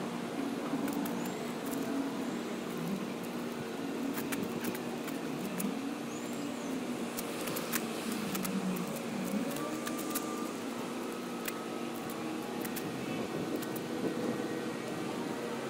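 A motor running steadily, its pitch wavering up and down, with scattered light clicks.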